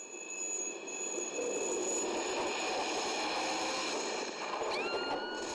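Gunshot-aftermath sound effect from a TV drama: several steady high-pitched ringing tones over a loud rushing noise, like deafened ears after a shot. Near the end a few tones slide upward, then the sound drops away suddenly.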